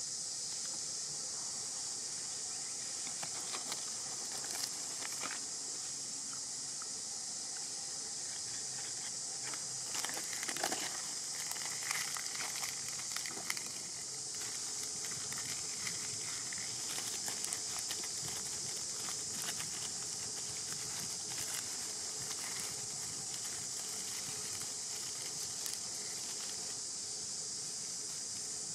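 A steady, high-pitched insect drone with no break, over scattered crackles of dry leaves rustled by a baby macaque moving in the leaf litter. The crackling is busiest about ten to thirteen seconds in.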